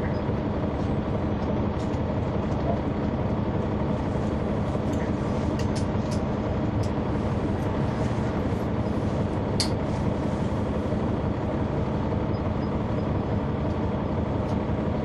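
Cabin sound of a 2004 Neoplan AN459 articulated transit bus, its Caterpillar C-9 ACERT diesel engine running steadily with a constant drone. A few short sharp clicks come through about halfway in.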